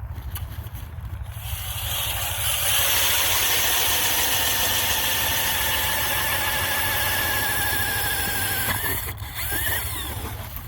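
A small engine running, revving up about two seconds in and held high for several seconds, then easing back near the end.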